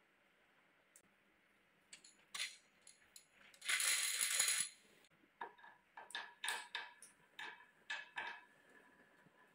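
Glass marbles clinking: a few light clicks, then a dense rattle of marbles in a small plastic bowl for about a second, then about ten separate ringing clicks as marbles are set one by one into the pockets of the wooden track.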